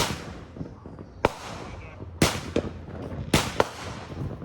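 Consumer firework cake firing, a run of about six sharp bangs at irregular gaps of roughly a second, each trailing off in a short echo.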